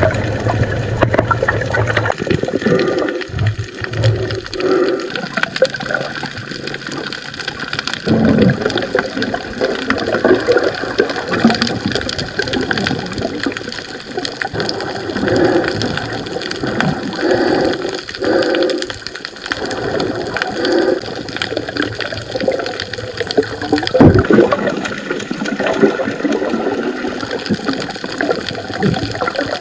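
Water sloshing and gurgling close to the microphone, swelling and fading unevenly.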